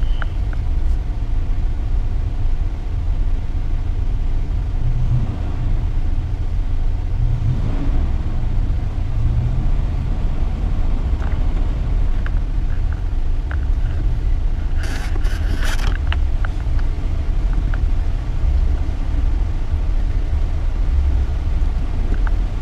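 Low, steady engine and road rumble inside the cab of a Mitsubishi Triton ute crawling over a rough off-road track, with scattered small knocks and a brief sharper scraping noise about two-thirds of the way through.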